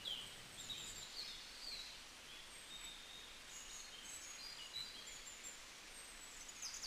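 Faint outdoor ambience: small birds chirping now and then in short, high notes, some falling in pitch, over a steady background hiss.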